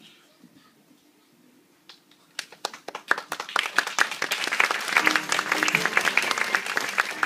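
Audience applauding: a few scattered claps about two seconds in, swelling within a second or so into full, dense clapping.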